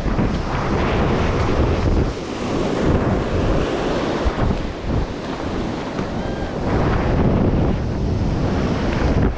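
Surf washing onto the beach, with wind buffeting the microphone in uneven gusts.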